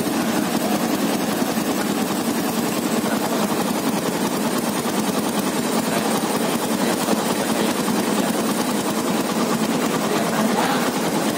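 Honda Tiger's standard single-cylinder four-stroke engine idling steadily in neutral through a custom exhaust, a rapid even putter.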